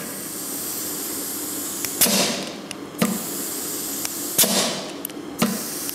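Compressed air hissing as an air-line fitting feeds the air-operated differential locker of a Tatra axle: a steady hiss for about two seconds, then four sharp bursts of hiss roughly a second apart. The air pressurises the locker.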